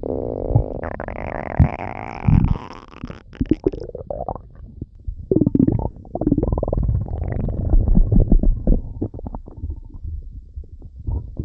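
Stomach rumbling and gurgling. A long squeal rises in pitch over the first few seconds, then gives way to irregular bubbling gurgles and pops.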